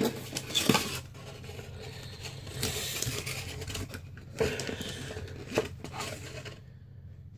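Packaging rustling and crinkling, with a few sharp clicks, as the USB cable is taken out of the camera box.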